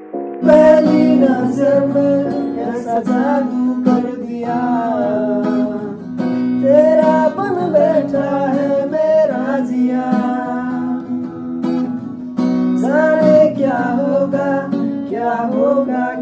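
Acoustic guitar strummed in chords with voices singing a song along with it, starting about half a second in.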